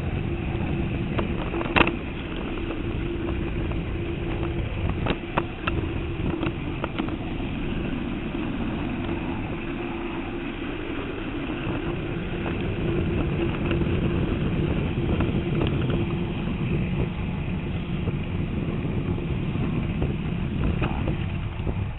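LGB G-scale rack locomotive running on cog track, heard from on board: a steady electric-motor and gear whine over a rumble of wheels on rail, with occasional sharp clicks.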